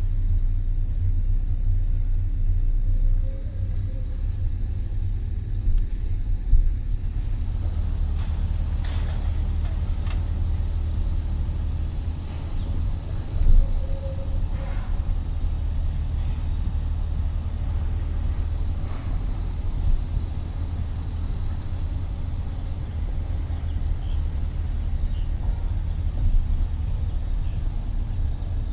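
Steady low rumble of a vehicle driving, heard from inside it, with a few light knocks. In the last third, a series of short high chirps.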